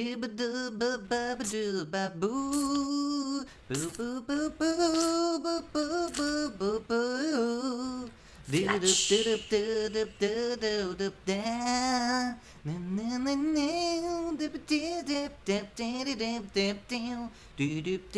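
A voice humming a wordless tune: a run of held notes with a wavering pitch, broken by short pauses.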